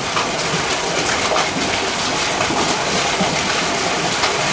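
Steady hiss of running water, with a few faint clicks.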